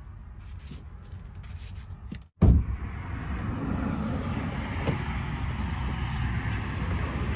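Quiet, muffled sound inside a van, then about two and a half seconds in a sudden loud clunk as the van's side door comes open, followed by steady outdoor traffic and street noise.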